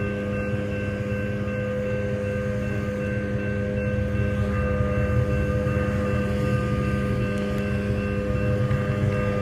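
Railroad crossing signal ringing steadily over a low rumble, heard from inside a car waiting at the crossing.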